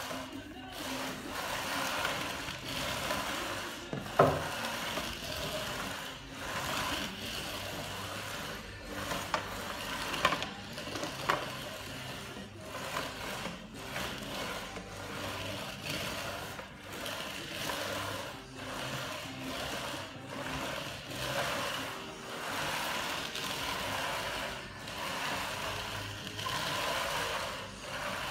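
Flat steel smoothing trowel on a long pole pushed back and forth through wet self-levelling floor compound, a wet scraping rasp that swells with each stroke. A sharp knock about four seconds in, and lighter clicks around ten seconds.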